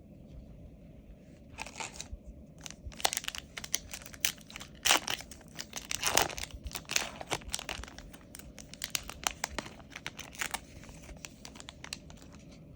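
Foil booster pack wrapper crinkling and being torn open by hand, a dense run of sharp crackles that dies down near the end.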